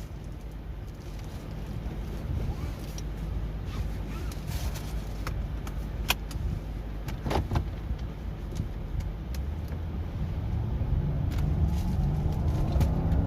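Lexus LS460's V8 engine and road noise heard from inside the car as it gathers speed, growing steadily louder toward the end, with a few sharp clicks along the way. It is pulling freely after a tune-up (new spark plugs, fuel filter, injector calibration) aimed at hard starting and sluggish acceleration.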